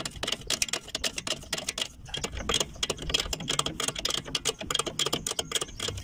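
Ratchet wrench clicking rapidly and irregularly as new nuts are run down onto the ball-joint studs of a front steering knuckle.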